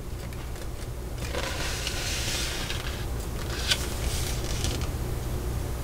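Paper instruction sheet rustling and sliding as it is handled and shifted along, with a short sharp tick partway through, over a steady low hum.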